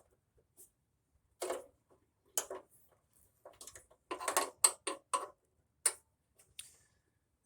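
Short clicks and light rattles of a heater control cable and its mounting bracket being handled and fitted by hand. They come in scattered clusters, the busiest a little past the middle.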